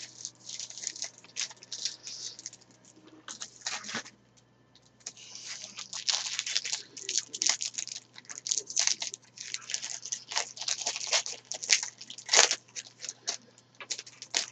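Trading card pack wrapper being torn open and crinkled, in irregular rustling bursts, with one sharp click about twelve seconds in.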